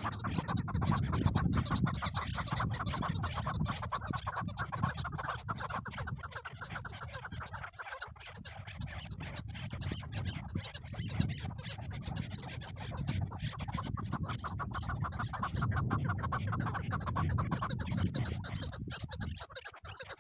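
Chukar partridges calling in rapid repeated chattering notes, over a low rumble and scattered clicks.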